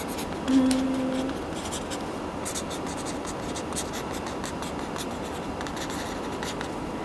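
Brush pen writing on a stiff shikishi card: many short pen strokes, one after another, as characters and a signature are written.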